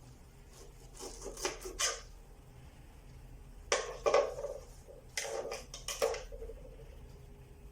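Kitchen knife knocking and clattering against the cutting board and dishes while ginger is cut, in three short bursts of sharp knocks, with a brief ring after the last two.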